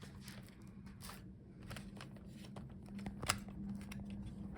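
Light clicks and rustles of a laptop's heatsink and fan assembly being handled as it is lifted off the motherboard, with one sharper click about three seconds in, over a low steady hum.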